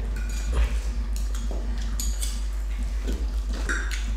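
Forks and knives clinking and scraping on dinner plates, in scattered irregular clicks.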